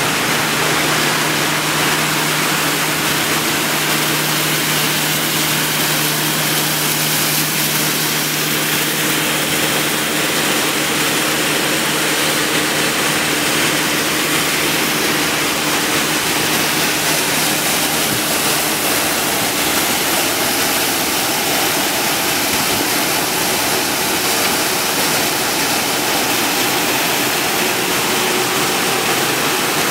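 PET bottle crushing and washing line running: steady loud machine noise mixed with rushing water, with a low motor hum that fades about two-thirds of the way through.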